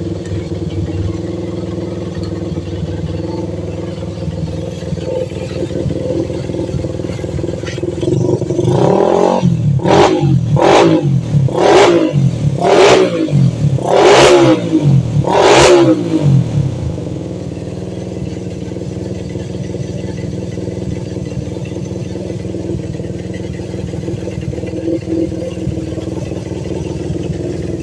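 Honda GL motorcycle's single-cylinder four-stroke engine idling, then revved in a run of six or seven short throttle blips through the middle before settling back to idle. The owner hears a 'snoring' (ngorok) noise in the engine and asks why it does it.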